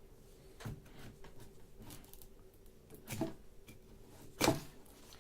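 Faint scratching and rustling of a seal sticker being picked at and peeled open on a phone's cardboard retail box, with a few light handling knocks, the loudest about four and a half seconds in.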